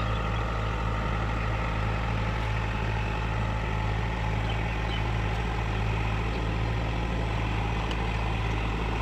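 Heavy vehicle engine running steadily with a constant low hum.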